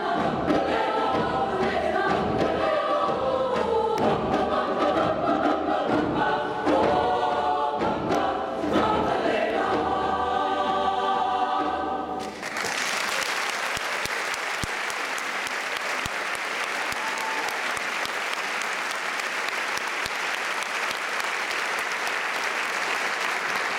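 Mixed youth choir of treble and men's voices singing, ending a piece about twelve seconds in, followed by steady audience applause.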